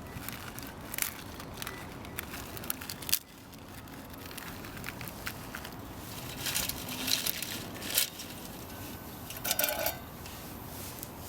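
Wood fire in a Solo Stove fire pit crackling, with irregular sharp snaps over a steady background hiss: a loud snap about three seconds in and a burst of crackles a little past the middle.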